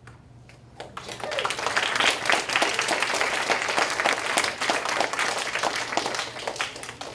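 An audience of schoolchildren applauding, the clapping starting about a second in and dense and steady until it dies down near the end.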